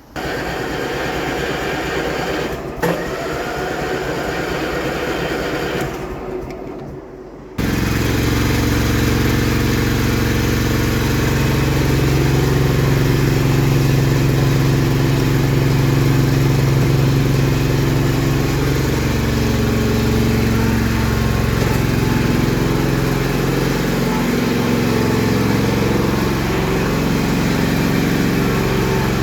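Vacuum cleaner motor switched on and running, starting suddenly. It eases off briefly about six seconds in, then comes back louder with a deeper, steady hum and runs on.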